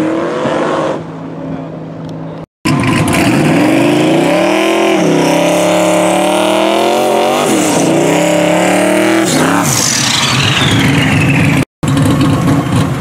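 Twin-turbo 4.6-litre two-valve V8 of a 2002 Mustang, first fading as the car pulls away down the strip, then, after an abrupt cut, revving hard through a burnout with its pitch rising and falling several times. The revving ends in a high whistle that falls away as the throttle closes.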